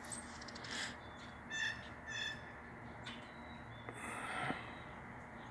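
A bird at the feeders gives two short calls about half a second apart, with a fainter call just before them; a brief rustling noise follows about four seconds in.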